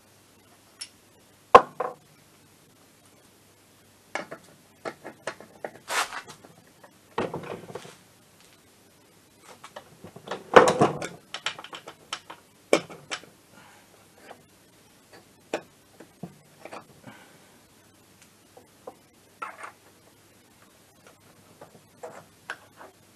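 Irregular knocks, clicks and metallic clatter of scooter transmission parts being handled and fitted onto the aluminium engine crankcase, with a few sharp, loud knocks about a second and a half, six and eleven seconds in.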